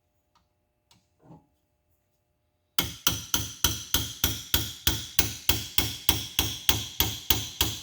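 Hammer tapping a knurled valve guide into an Oldsmobile V8 cylinder head, starting about three seconds in with even, ringing metal-on-metal strikes, about three to four a second, to start the guide square in its bore.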